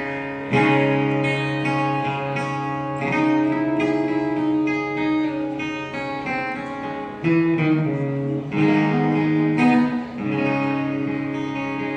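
Instrumental intro of a song, led by guitar playing plucked and strummed chords that change every second or two.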